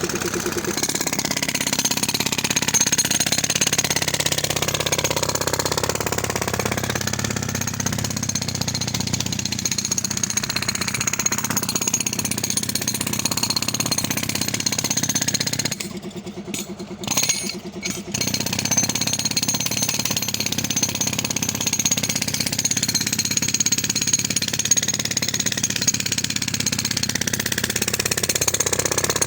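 Demolition hammer (concrete breaker) hammering continuously into concrete. It stops briefly for a couple of seconds about two-thirds of the way through, then carries on.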